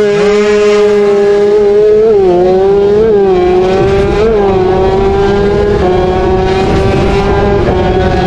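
Racing motorcycle engine heard from on board, launching hard off the start with a quick climb in pitch, then held at high revs. There are three brief hitches in pitch about two, three and four seconds in as it shifts up through the gears.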